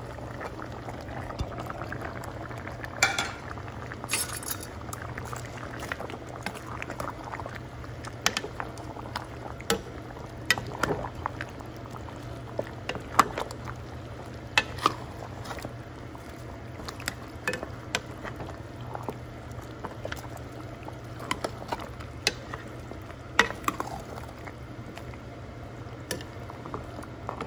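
Balbacua stew bubbling in an enamelled cast-iron pot over a steady low hum, with irregular sharp clicks of a utensil against the pot as green onions and chilies are stirred in.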